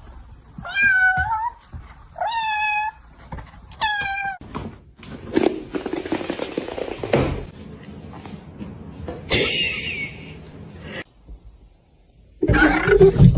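A cat meowing three times in quick succession, short calls about a second and a half apart, followed by a few seconds of shuffling noise and a loud thump-like burst near the end.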